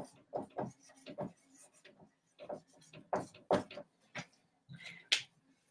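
Dry-erase marker writing a word on a whiteboard: a quick, irregular run of short squeaks and scratches, one for each pen stroke.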